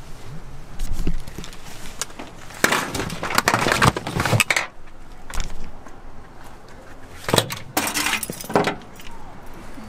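Handling noise: clattering and metallic clinking as gear and the camera are picked up and shifted, in two bouts, the first and louder from about three to five seconds in, the second from about seven to nine seconds in.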